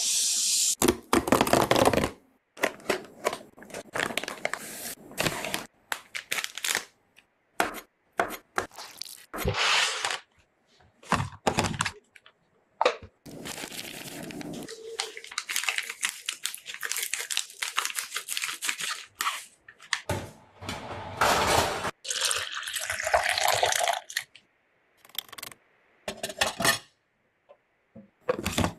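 Kitchen chores up close: running tap water, dishes and cutlery clattering in a metal sink, and rustling and scraping. It comes as irregular clicks and short bursts with brief gaps, and a longer stretch of running water midway.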